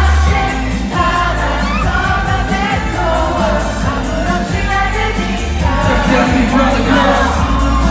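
K-pop song played loud over a concert sound system, with a heavy bass beat and male group vocals singing, heard from the audience.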